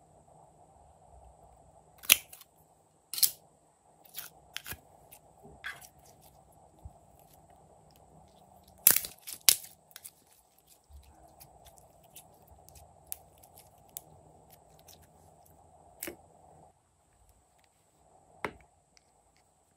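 Plastic slime containers and slime being handled: a series of sharp clicks and pops, scattered irregularly and loudest about two, three and nine seconds in, over a faint steady hum.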